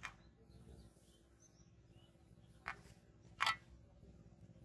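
Quiet outdoor ambience with a few faint bird chirps, broken by three brief sharp handling noises, the loudest about three and a half seconds in, as a bamboo fishing rod is lifted and cast.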